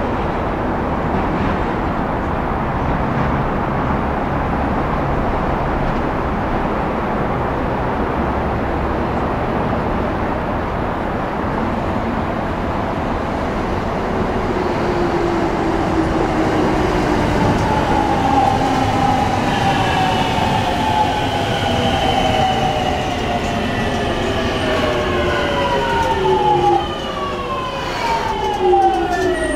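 Tokyo Waterfront Area Rapid Transit 70-000 series electric train arriving. A steady rumble of the approaching train gives way, from about halfway, to the whine of its VVVF inverter and traction motors in several tones that fall in pitch as it brakes. The tones drop steeply near the end as the train slows to a stop.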